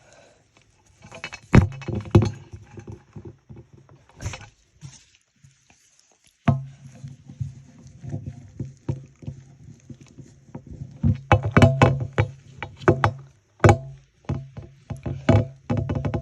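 Hands digging and pushing through a toy doll's packed hair close to the microphone: rubbing, rustling and scattered sharp clicks and knocks of plastic. There is a short lull, then a low rubbing rumble sets in about six seconds in and grows busier near the end.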